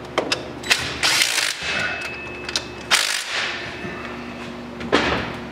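Ratchet wrench clicking through several uneven strokes as a bolt on an ATV's front brake is tightened.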